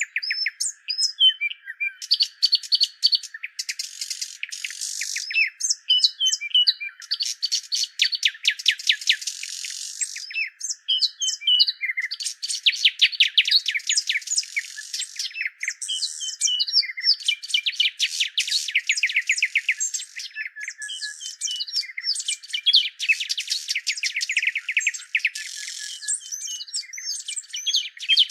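Small birds chirping and twittering: rapid runs of high chirps and short trills, several overlapping, continuous throughout. The sound is thin and high, with nothing beneath the chirps.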